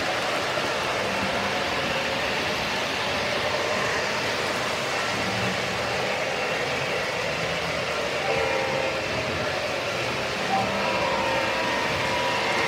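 O scale model trains running past on the layout's track: a steady rolling rumble of metal wheels on the rails, with a light whine joining in about eight seconds in.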